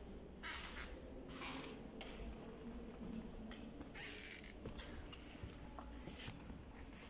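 Quiet room tone with a handful of soft, irregular rustles and scuffs from the person filming as they move about with a handheld camera.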